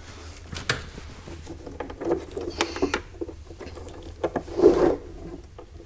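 Hand tools working on a classic Mini's body as parts are unbolted: irregular metallic clicks, knocks and rubbing, with the loudest knock near the end, over a low steady hum.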